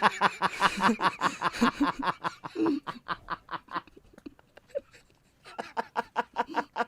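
A man laughing hard and helplessly in rapid, breathy pulses. There is a long run of them, a break of about a second and a half, then another burst of laughter near the end.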